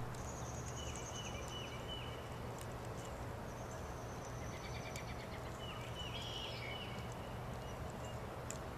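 Songbirds singing thin, high whistled and trilled phrases in three short spells, over a steady low outdoor background hum.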